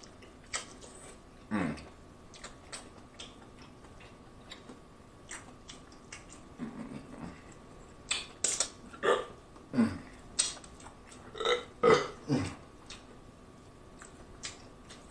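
Close-miked wet mouth sounds of eating: lip smacks and sucking sauce off the fingers, with scattered small clicks. Several louder smacks come in the second half.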